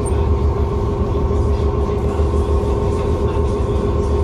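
Engines of the Fauno, a ro-ro passenger ferry, running underway: a loud, steady low drone with a constant hum above it.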